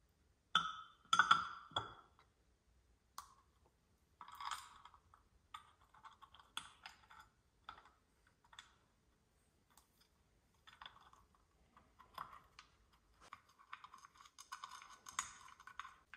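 Light metallic clicks and clinks as the bolts of a Rotax 787 engine's rotary valve cover are started by hand. The clicks come irregularly and get busier near the end.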